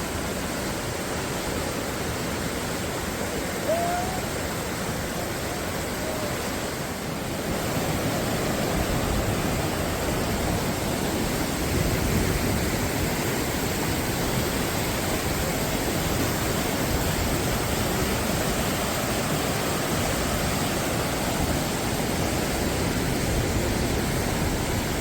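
Steady rushing of a waterfall, a constant roar of falling water that grows louder about a third of the way in.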